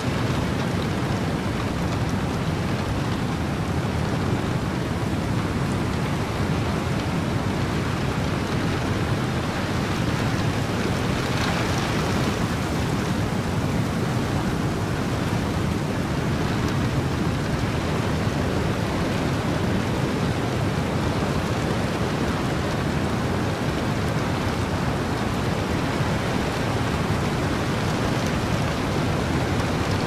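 Heavy rain falling steadily together with wind and ocean surf, an even, dense hiss that swells briefly about eleven seconds in.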